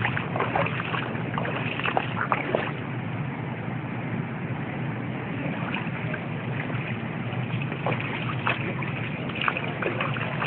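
Steady wash of moving floodwater, with brief splashes and sloshes now and then, most of them early and near the end.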